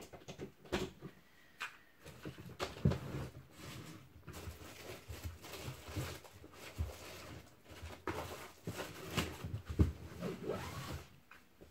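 Irregular knocks, taps and rustling of objects being moved and handled, with a couple of louder thuds about three seconds in and again near the end.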